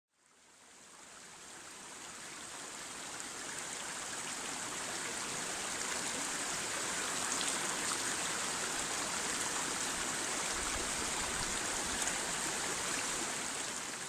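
Steady rush of running water from a stream. It fades in from silence over the first few seconds and starts to fade out near the end.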